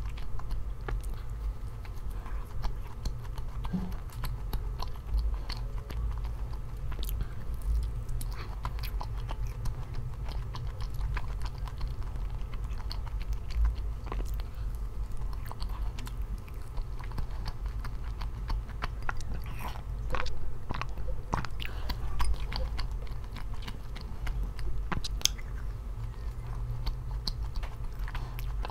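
A person chewing and biting food close to the microphone, with many small wet clicks and crunches, over a steady low hum.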